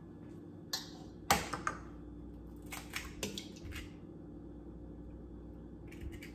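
Egg being cracked: one sharp knock about a second in, then scattered lighter clicks and taps as the shell is broken and pulled apart.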